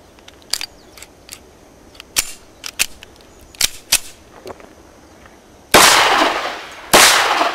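A few light clicks from handling a silver semi-automatic pistol, then two pistol shots about a second and a quarter apart, each with a trailing echo. The shots are 9x21 cartridges loaded with frangible lead-birdshot heads.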